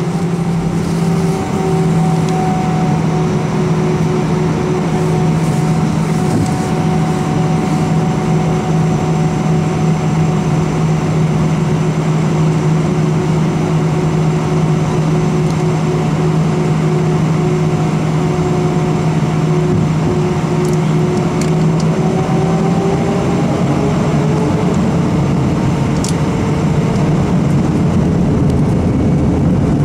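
Airbus A319 jet engines heard from inside the cabin while taxiing: a steady hum with a higher whine over a constant rushing noise. From about two-thirds of the way through, the whine climbs in pitch as thrust is increased at the runway.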